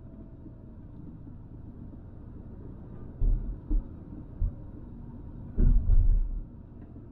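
Steady low rumble of road and engine noise inside a moving Citroën Xantia's cabin, broken by several heavy low thumps about three seconds in, once more a second later, and a cluster near six seconds.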